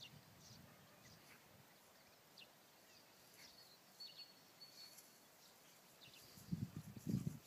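Quiet open-air ambience with faint, scattered bird chirps, including a short steady whistled note about halfway through. Low rhythmic thuds begin near the end and grow louder.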